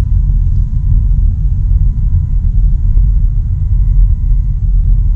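Steady low rumble of a car driving: road and wind noise heard from inside the moving car.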